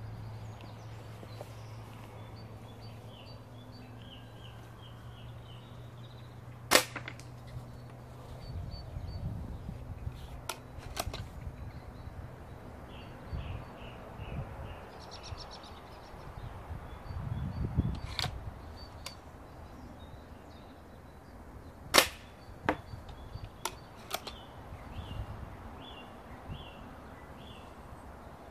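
Two sharp cracks of a .177 air rifle being fired, one about a quarter of the way in and one about three-quarters through, with a few fainter clicks and knocks between and after them.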